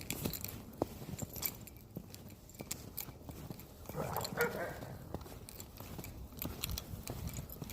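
Footsteps crunching through snow, a steady run of short sharp ticks. About four seconds in, a dog gives a brief vocal sound lasting under a second.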